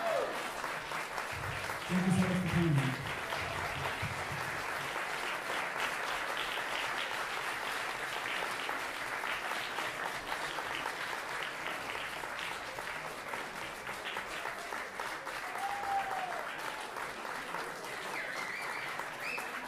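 Audience applauding at the end of a jazz band's tune, with a loud shout about two seconds in and a couple of brief whoops near the end.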